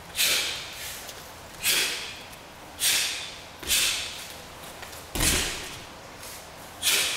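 Taekwondo uniform snapping with each strike and block, six sharp swishing cracks at an irregular pace that ring briefly in the hall, one of them about five seconds in with a low thud underneath.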